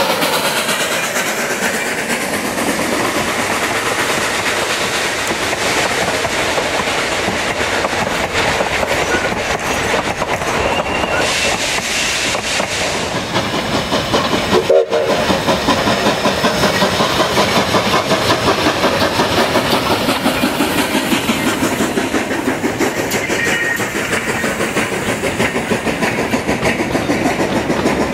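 A Durango & Silverton narrow-gauge steam locomotive, 2-8-2 No. 478, working past with its passenger cars, wheels clicking over rail joints in a steady rhythm. About halfway through there is a brief break, and a second train passage follows.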